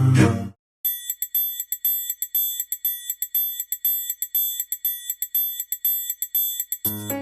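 A small bell ringing rapidly, about five strikes a second, for some six seconds, with bright high tones. Background music ends shortly before it and comes back near the end.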